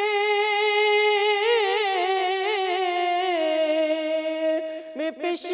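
A naat sung unaccompanied by a solo male voice: long held notes with wavering ornaments that step down to a lower note about three seconds in, then a short pause near the end.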